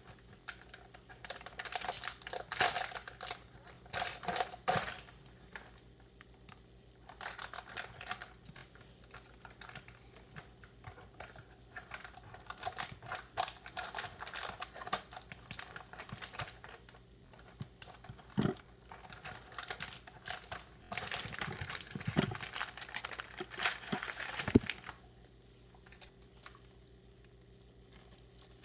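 Clear plastic wrapping on a tray of Peeps marshmallow candies crinkling as it is handled and torn open, in bursts of crackling with short pauses, stopping a few seconds before the end.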